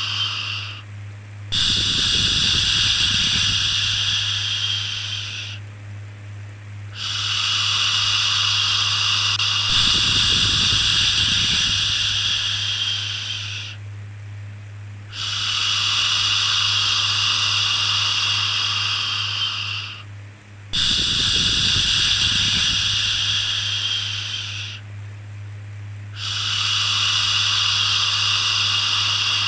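Rhythmic 'shhh' shushing used to soothe a baby: long hissing shushes of four to six seconds each, with brief pauses between them, over a steady low hum.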